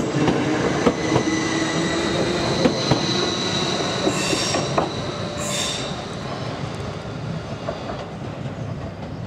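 Electric multiple unit pulling out of the platform and running away along the track: a steady electric whine under clicks from the wheels, with two short high wheel squeals about four and five and a half seconds in, growing fainter as the train recedes.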